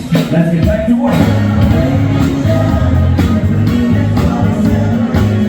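Loud upbeat song with a strong bass line and a steady beat, with singing over it.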